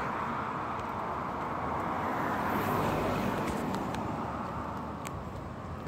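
A passing vehicle's road noise: a smooth rush that swells to its loudest about halfway through, then fades. A few faint crackles of dry leaves near the end.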